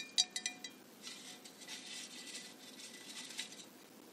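A quick run of light clinks with short ringing tones in the first half second, then a faint soft rustling.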